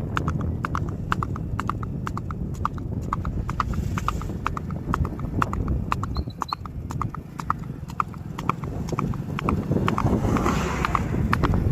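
Hooves of a ridden horse clip-clopping in a steady rhythm, about four hoofbeats a second, over a constant low rumble.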